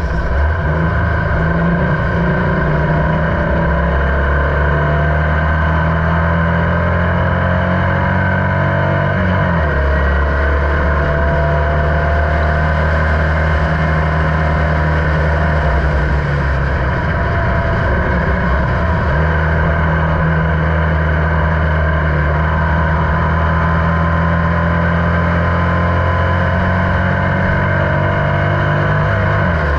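Formula Vee race car's air-cooled Volkswagen flat-four engine running hard on track, heard onboard. The engine note changes briefly about ten seconds in, again between about sixteen and nineteen seconds, and just before the end, then settles back.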